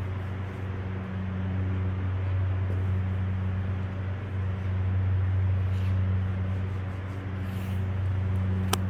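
A steady low machine hum with an even rushing noise under it, and a couple of light clicks near the end.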